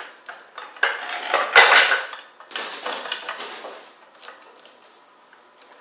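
Steel chains of a manual chain hoist rattling and clinking as they are handled and pulled, loudest about a second and a half in, then dying down to a few light clinks.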